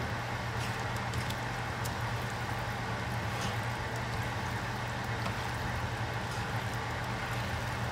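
Metal tongs tossing spaghetti in tomato meat sauce in a pot: faint, scattered taps and stirring over a steady low hum.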